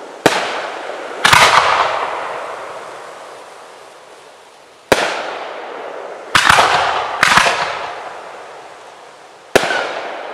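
Aerial display firework shells bursting: six sharp bangs at uneven intervals, each dying away over a second or two.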